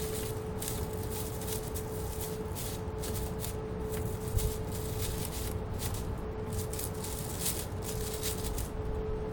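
Irregular crinkling and crackling of plastic as a squirrel chews and tears at it, over a steady low hum.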